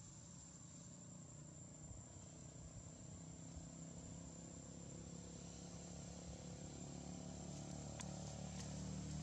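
Faint outdoor background with a low engine-like hum that grows steadily louder, a steady high-pitched whine over it, and two faint clicks near the end.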